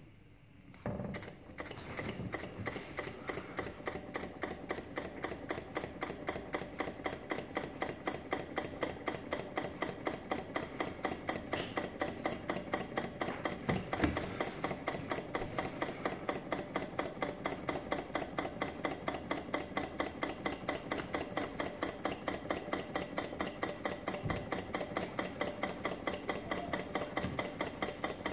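Small walking-beam Stirling engine running, its flywheel and linkage clicking in a fast, steady rhythm. One louder knock about halfway through.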